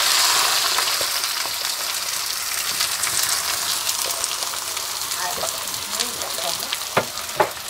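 Sliced onions dropped into hot oil in a wok, sizzling loudly at first and settling into a steady, gradually softer frying hiss. A couple of light knocks come near the end.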